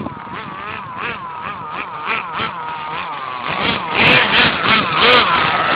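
Radio-controlled Subaru rally car's motor whining, its pitch rising and falling over and over as the throttle is pulsed. From about four seconds in it gets louder and rougher as the car pushes into tall grass.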